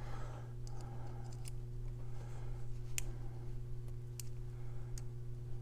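A few scattered, sharp little clicks of a small hex key working against a tightly set hex screw in a Byrna Boost adapter, while the screw is being forced loose. Under them runs a steady low hum.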